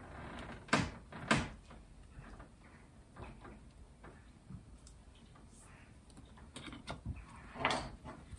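Handling of a glass olive oil bottle while oil is poured into a non-stick frying pan: two sharp knocks about a second in, faint taps while it pours, and a short scraping burst near the end as the screw cap is put back on.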